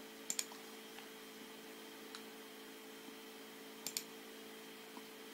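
Computer mouse button clicks, two quick pairs about three and a half seconds apart with a faint single click between, over a steady low electrical hum.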